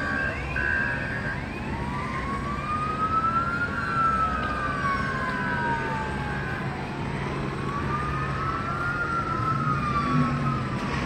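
Police siren wailing, its pitch slowly rising and falling in two long sweeps, with a second, steadier siren tone over the first half and a low steady hum beneath.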